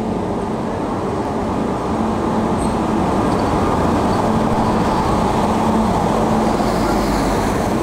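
Electric locomotive of an arriving passenger train pulling into a station and rolling past close by: a steady rumble of wheels on the rails with a low hum from the locomotive, growing louder about two seconds in as it draws alongside.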